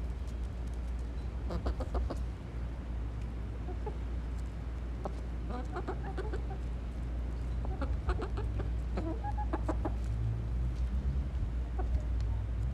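Chickens clucking in several short runs of quick clucks, with pauses between them, over a steady low rumble.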